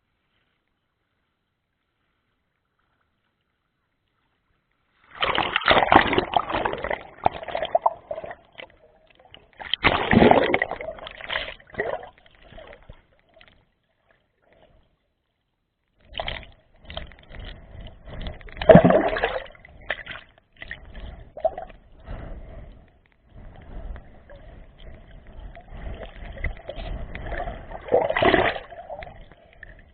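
Sea water splashing and washing in irregular surges, starting about five seconds in, with a lull in the middle and several louder swells.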